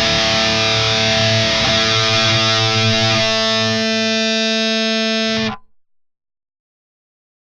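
Distorted seven-string electric guitar, a Jackson JS22-7 with the Seymour Duncan Nazgul and Sentient pickups in the middle position. A long held note rings out and then stops abruptly about five and a half seconds in.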